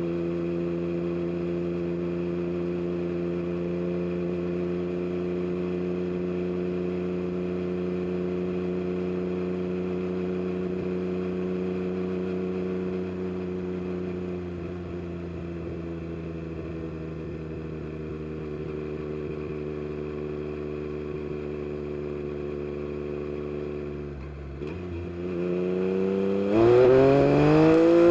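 Yamaha MT-09 SP's three-cylinder engine through an Akrapovic carbon race exhaust, held at a steady engine speed while cruising and easing off slightly about halfway through. Near the end the throttle opens and the exhaust note climbs sharply and grows louder as the bike accelerates hard.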